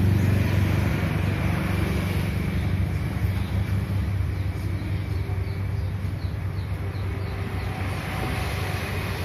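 Panasonic F-EQ405 orbit ceiling fan running, a steady rush of air with a low rumble that eases off about four seconds in.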